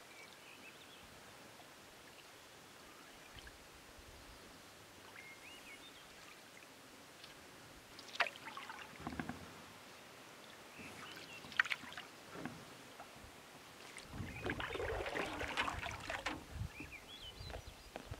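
Wooden paddle stroking through calm water beside an aluminum canoe, with a couple of sharp knocks of the paddle against the hull. About 14 seconds in, louder splashing and trickling as a mug is dipped into the lake and lifted out.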